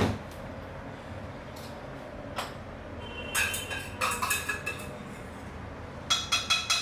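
Kitchen utensils and cookware clinking: a sharp knock at the start, then two clusters of ringing clinks, one about three seconds in and another near the end.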